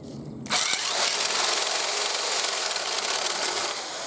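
Electric drill running under load, boring into a laminated plywood block through a 5/32-inch pilot hole, the bit pulling itself in hard. It starts about half a second in and runs steadily, with a faint falling whine near the end.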